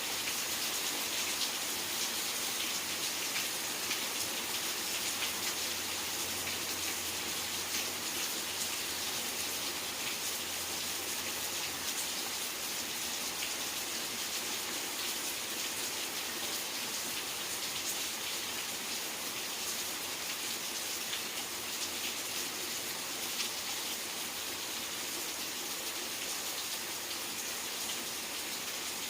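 Steady rain falling: an even hiss of dense drops with many small drop ticks on surfaces.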